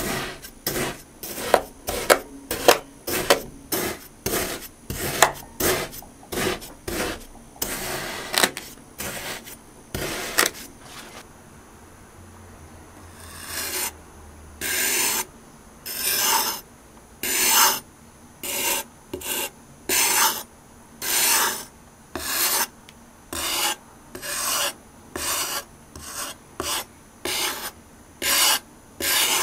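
A white-bladed knife cutting through packed kinetic sand, with a quick run of gritty, crunchy slicing strokes about two a second. After a short quieter gap near the middle, slower, louder strokes follow about once a second as the blade shaves across a packed block.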